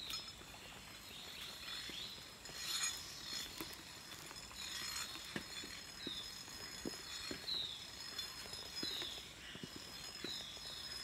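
Forest ambience: a steady high insect drone, and from about midway a short falling chirp repeated roughly every two-thirds of a second. Soft footsteps sound on the wooden planks of a suspension walkway.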